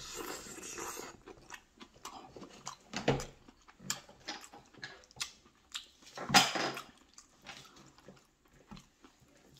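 A person eating noodles close to the microphone: irregular chewing and wet mouth sounds with small clicks, and one louder burst about six seconds in.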